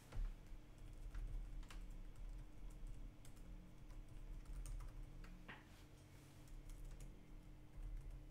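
Typing on a computer keyboard: scattered single keystrokes, irregularly spaced, over a steady low hum.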